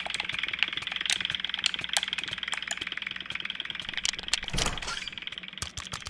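Video game being played with a controller: rapid, irregular clicks and taps over a steady hiss, with a louder burst about four and a half seconds in.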